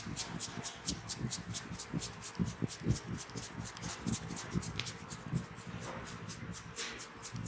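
Hands massaging a head and hair, quick even rubbing strokes at about five or six swishes a second with soft low thumps underneath.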